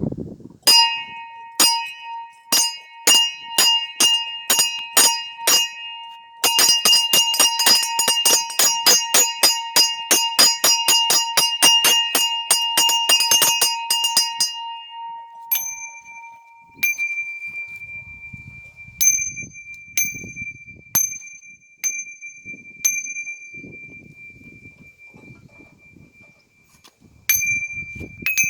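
Bell ringing (kolokolny zvon): bells struck in a rhythmic pattern, two or three strikes a second at first. About six seconds in it becomes a fast, dense peal of several bells. From about halfway through, a single higher bell is struck every second or so, its tone ringing on between strikes.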